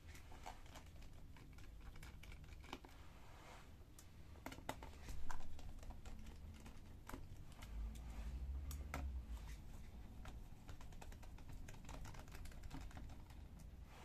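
A small screwdriver working the screws out of the bottom panel of a Toshiba Satellite Radius 11 laptop: a scatter of light, irregular clicks and ticks as screws turn and are handled, with a dull low thump about five seconds in.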